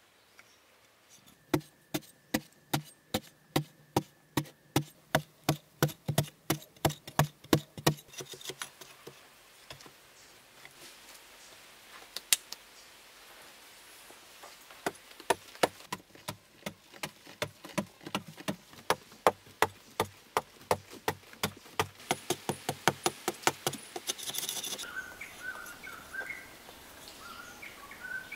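A metal-bladed, wooden-handled digging tool chopping into hard-packed sandy clay, about three blows a second. After a pause comes a second, faster run of blows. Birds chirp near the end.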